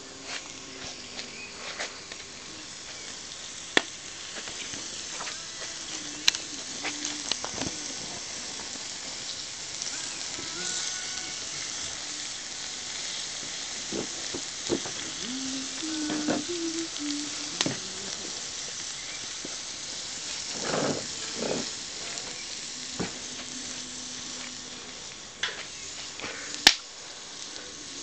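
Sliced red onion and peppers sizzling in a wide steel Hungarian wok over a wood fire, being stirred, with a steady frying hiss and a few sharp clicks.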